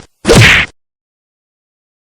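A single short, loud sound effect lasting about half a second, starting a quarter of a second in.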